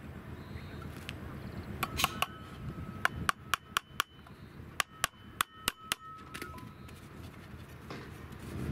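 Small hammer tapping a metal bracket onto a wooden board: a dozen or so sharp taps in quick runs between about two and six seconds in, each with a brief metallic ring.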